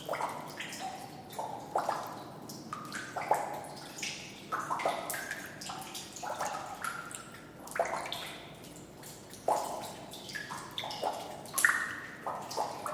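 Water dripping close up in a sewer, irregular drops falling a few times a second, each a sharp plink with a short ringing pitch that changes from drop to drop, over a faint hiss.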